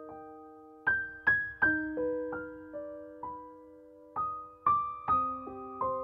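Background music: a slow, gentle piano melody, single notes struck and left to ring out, with a short pause in the middle.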